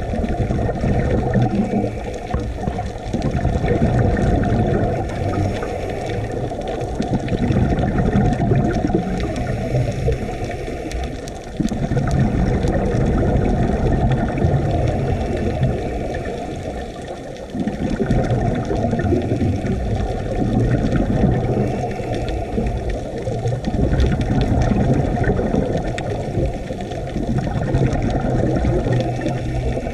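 Muffled underwater noise picked up through a GoPro's waterproof housing: a dense low rumble of scuba divers' exhaled bubbles and water movement, surging and easing, with two short lulls about 11 and 17 seconds in.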